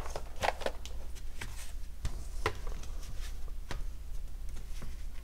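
A folding cardboard game board being handled and folded on a table: a scattering of light taps, clicks and soft scrapes.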